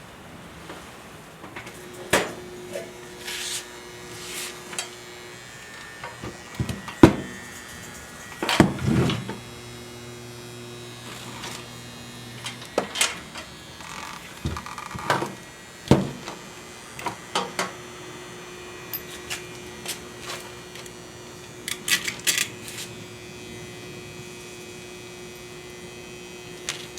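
Small mains transformer humming with a buzz that starts and stops several times, from core laminations that are not clamped tightly together. Sharp knocks and clicks are scattered through it.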